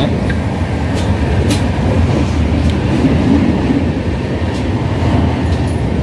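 Steady rumble of a moving passenger train heard from inside the coach, with a few faint clicks.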